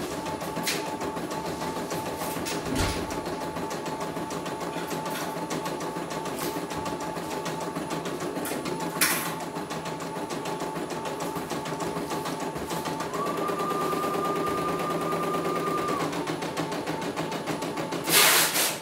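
CNY computerized embroidery machine stitching a design, its needle running at a steady fast rate under a constant motor hum. A higher whine joins for about three seconds past the middle. There is a sharp click about nine seconds in and a brief loud burst of noise near the end.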